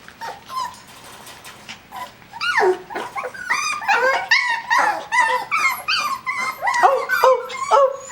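A litter of seven-week-old Coton de Tulear puppies whining and yipping over one another, crying for attention. The cries are sparse and faint at first, then from about two and a half seconds in they become a dense chorus of short, high, rising and falling whines.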